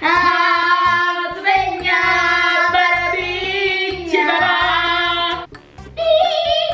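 A child singing long, high, drawn-out notes, with a short pause about five and a half seconds in.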